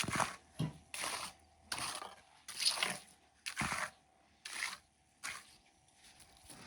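Repeated gritty scraping and crunching strokes, about one a second, of a hand tool working wet concrete mix.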